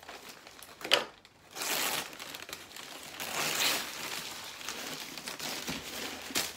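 Paper and plastic packaging crumpling and rustling as white packing paper is pulled out of a cardboard box and a bagged plant is lifted out. A single sharp click about a second in is the loudest sound.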